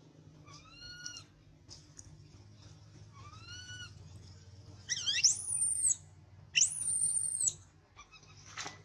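Infant long-tailed macaque crying: two short rising-and-falling whimpers, then two long, high-pitched screams about five and six and a half seconds in, the loudest part.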